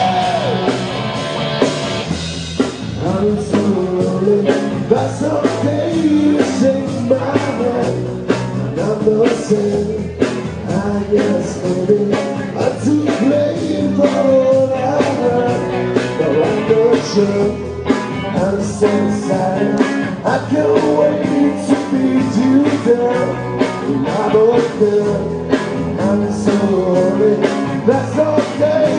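Live rock band playing loudly, with electric guitar and a drum kit keeping a steady beat.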